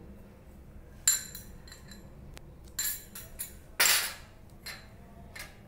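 A steel spoon clinking against a small glass bowl and a steel pot as spice is spooned in, a few light separate clinks. About four seconds in comes a louder, short scraping clatter of a glass bowl moved on a plate.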